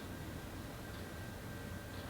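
Vintage ceiling fans running: a faint, steady low hum with a light tick about once a second.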